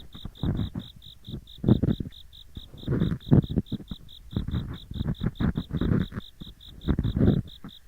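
Ear pick scraping in both ears at once, close and crunchy, in irregular strokes. Under it, autumn insects chirp in a steady, rapid, high-pitched pulse, about six chirps a second.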